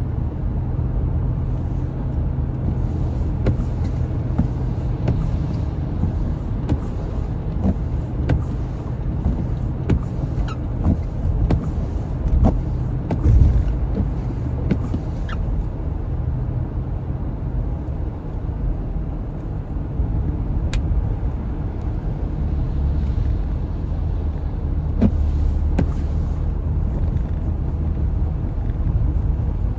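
Road noise inside a moving car: a steady low rumble of engine and tyres, with scattered light ticks.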